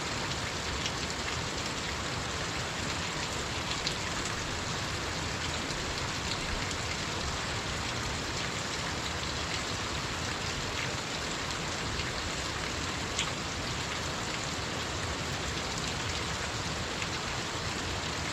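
Small waterfall splashing: a steady rush of falling water, with a few small splashes standing out here and there.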